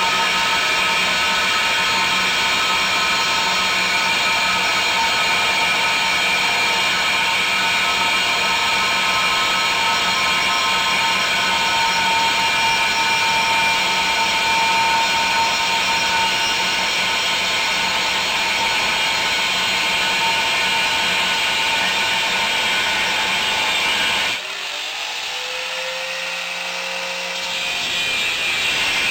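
Handheld angle grinder with a thin cutting disc slicing through a steel plate, a steady loud grinding screech. About 24 seconds in the disc comes out of the cut and the grinder runs free, quieter, its whine rising and levelling off, before biting into the steel again near the end.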